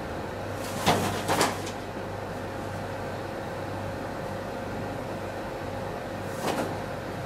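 Steady low hum with a few short swishes, two close together about a second in and one more near the end.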